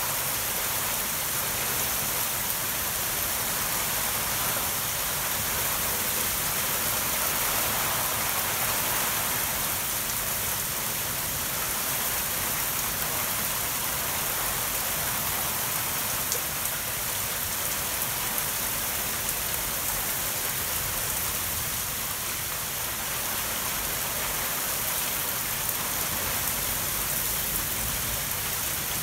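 Torrential rain falling steadily, an even, unbroken hiss.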